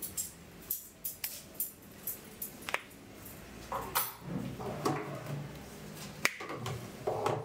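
Knuckles cracking as fingers are pulled and bent during a hand massage: a quick, irregular series of sharp pops.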